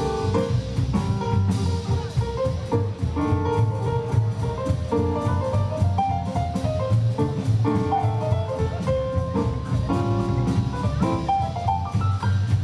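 A live band of piano, double bass and drum kit playing together: piano notes over a walking low bass line, with frequent drum strikes.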